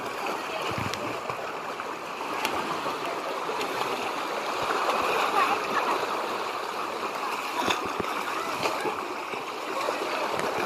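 Seawater sloshing and splashing against shoreline rocks, with swimmers splashing in the water: a steady rush of moving water.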